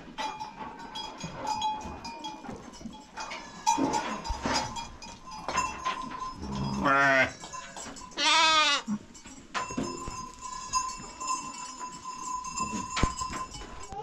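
Goats bleating twice, loudly, about six and a half and eight seconds in, over the steady ringing of livestock bells, with scattered knocks and clicks.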